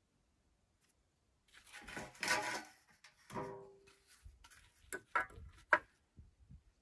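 Stones being shifted on the top of a stone wall, scraping as they are worked into place, then a few sharp knocks about five seconds in, as stone is tapped down and a spirit level is set on it.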